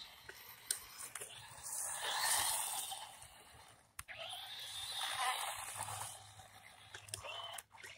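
Small electric RC truck driving on asphalt, its motor and tyres making a scraping, rushing noise that swells twice, about two seconds in and again about five seconds in, with scattered clicks.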